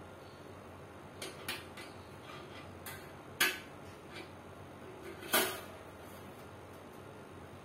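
Scattered clicks and clinks of an Advance TDS-18 stand fan's wire front guard being handled and fitted to the rear guard, with two louder clacks about three and a half and five and a half seconds in.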